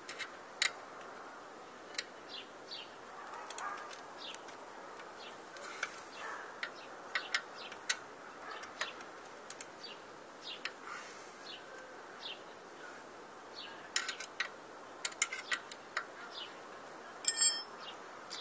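Scattered sharp clicks and light metallic clinks of hand tools and parts on a bicycle crankset as the crank arm is taken off, at irregular intervals. A brighter, ringing metal clink comes near the end.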